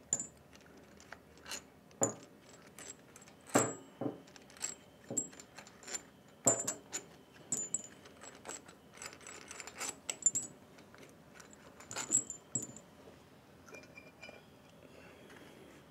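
Loosened steel head bolts being unscrewed by hand and handled on a Copeland 4R/6R refrigeration compressor's head: scattered sharp metallic clicks and clinks, which thin out near the end.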